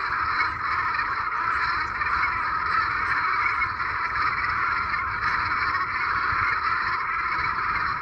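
A large flock of geese calling all at once, so many overlapping honks that they blur into one steady, unbroken chorus.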